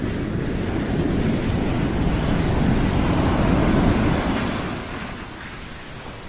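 Shower water running and splashing onto skin and a tiled floor, as a steady rushing noise that grows quieter about five seconds in.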